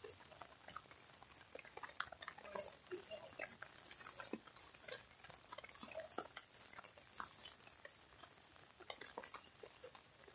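Faint rain dripping and pattering, with scattered irregular ticks of drops over a soft hiss.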